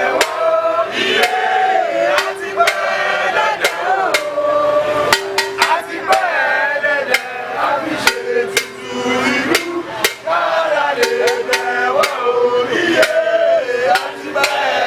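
A group of voices chanting and singing a Yoruba traditional festival chant, with many sharp percussive knocks at irregular intervals throughout.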